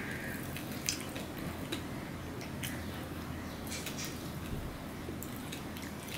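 Eating sounds of rice being mixed by hand on a stainless steel plate: soft squishing with scattered light clicks of fingers and food against the metal, and chewing.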